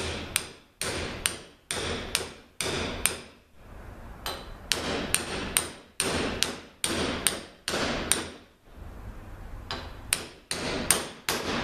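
Small hammer tapping a bushing driver, driving a new stator bushing into a ZF 6HP26 automatic transmission's stator support: light, steady metallic taps with a short ring, about two a second, with brief pauses about three and a half and eight and a half seconds in.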